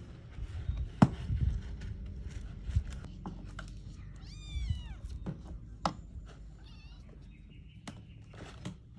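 A kitten meows once about four seconds in, a single cry that rises and falls in pitch, with a fainter cry a couple of seconds later. Sharp clicks and knocks from handling come through, the loudest about a second in.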